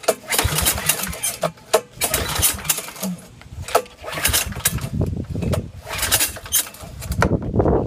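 Recoil pull starter on a Kawasaki FS481V V-twin mower engine being pulled several times in a row. Each pull whirs the rope out and cranks the engine over with a chugging sound, but it does not start because the ignition is off.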